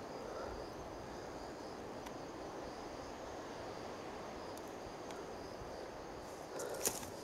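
Faint, steady chirring of insects over a soft background hiss. Near the end, footsteps on leaf litter and stones start again.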